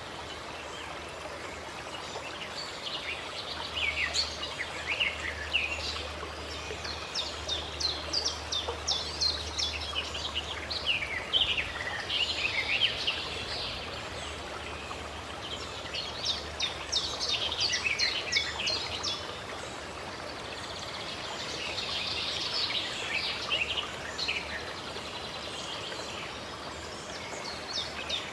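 Small birds chirping and trilling in repeated clusters of quick calls over a steady rush of running water.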